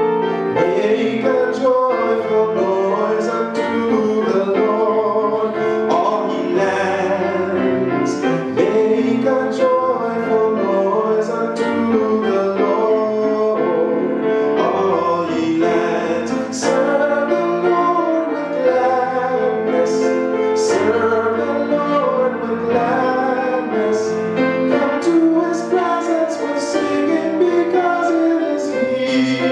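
A man singing a simple gospel scripture song, accompanying himself on keyboard.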